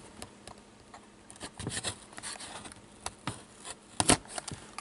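Utility knife scraping and cutting at a sealed cardboard trading-card box, with scattered rustles and small clicks and one sharper click about four seconds in.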